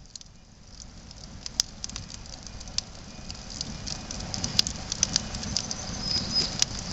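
Small campfire crackling, with scattered sharp pops and snaps over a low rumble, growing slowly louder.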